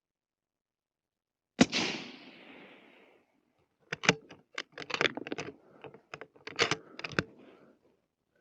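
A suppressed Remington 700 .223 bolt-action rifle fires one shot about one and a half seconds in, the report trailing off over a second or so. A few seconds later comes an irregular run of sharp clicks and knocks from the rifle being handled.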